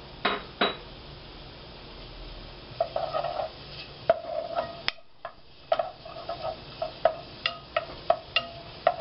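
Wooden spoon stirring diced bacon in a metal pot, scraping and clinking against the pot bottom in short quick strokes from about three seconds in, with a brief pause about halfway. Two sharp knocks sound near the start.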